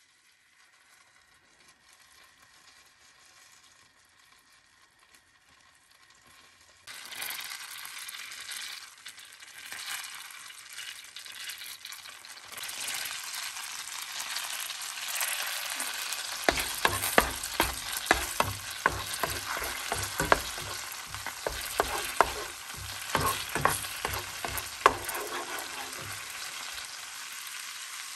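Minced garlic frying in butter in a nonstick pan, a steady sizzle that starts suddenly about seven seconds in after a very quiet start. From about halfway, sharp knocks and scrapes of a utensil stirring against the pan.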